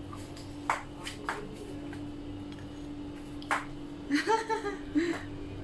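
Wooden chopsticks clicking sharply against a plate a few times while picking up food, followed about four seconds in by a few short voiced sounds from a person. A steady low hum runs underneath.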